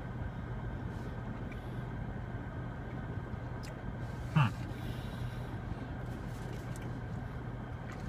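Steady low hum inside a car cabin. About four seconds in, a short "mm" from one of the tasters cuts through it.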